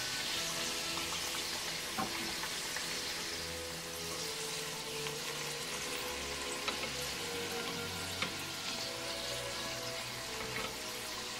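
Ravioli deep-frying in hot oil in a small saucepan: a steady sizzle with fine crackle, and a few sharp clicks of tongs against the pan as the pieces are turned.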